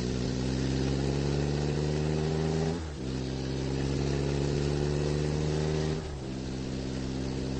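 Car engine accelerating, its pitch climbing slowly, then dropping at a gear change about three seconds in and again about six seconds in.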